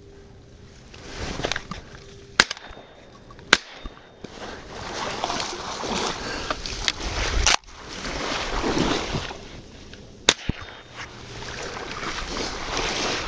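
Wind gusting over the microphone, swelling and fading in waves, with a few sharp clicks or knocks along the way.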